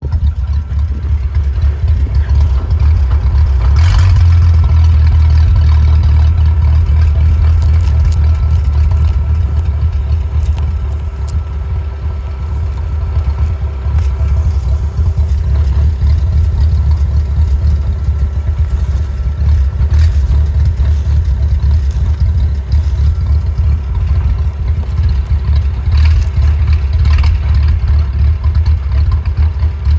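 Willys engine idling roughly, its running uneven and unsteady, with a few sharp clicks along the way.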